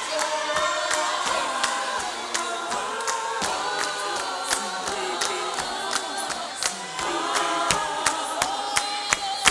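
Gospel choir of men and women singing in the clap-and-tap style, with sharp hand claps over the voices that settle into a steady beat of about three a second near the end.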